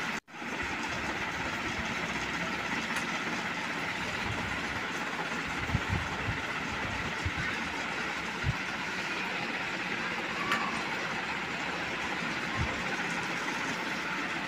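Steady, even background rushing noise with a few soft low thumps.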